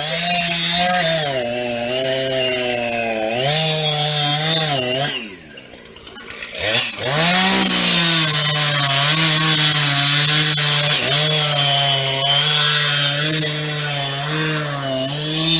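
Gas chainsaw running at high revs, its pitch wavering up and down. About five seconds in the throttle drops off to a quiet idle, then it revs back up about two seconds later and runs on steadily.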